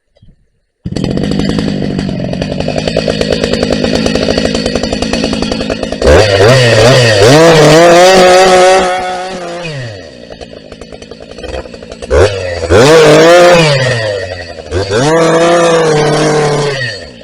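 Husqvarna 380 CD two-stroke chainsaw running. It starts suddenly with a steady lower-speed note, then three times climbs to high speed and drops back, the first burst the longest.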